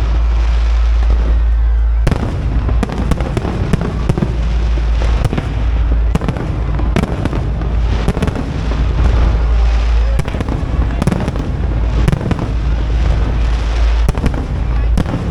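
A fireworks display going off overhead: many sharp bangs and crackling bursts at irregular intervals, over a continuous low rumble.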